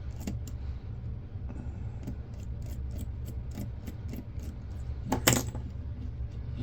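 Small screwdriver clicking and scraping on a set screw and the metal parts of a camcorder as it is worked, light clicks about two or three a second, then a sharper metallic clatter about five seconds in, over a steady low hum.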